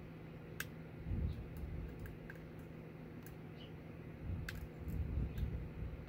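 Light, scattered metallic clicks of a hook pick and tension wrench working the pins of a Yale Platinum pin-tumbler lock cylinder, with low rumbling handling noise twice.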